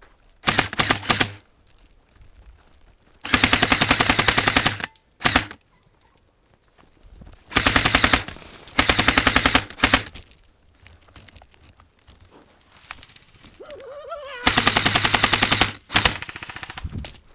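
Airsoft guns firing in rapid fully automatic bursts, several separate bursts of about a second each, with short pauses between.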